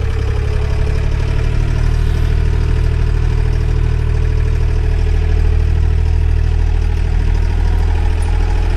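Tractor engine running steadily with a low drone, while the farmer moves the blower sprayer.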